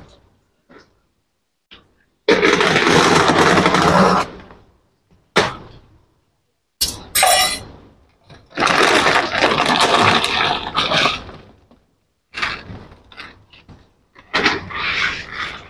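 A woven plastic rice sack and its plastic liner crinkling and rustling as hands open and handle it, in several separate bursts with short gaps between them. Near the end a hand scoops into the dry rice.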